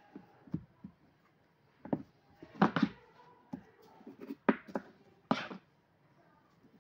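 A metal spoon knocking and scraping on a cutting board: about ten short knocks and clicks spread over several seconds, the loudest cluster near the middle.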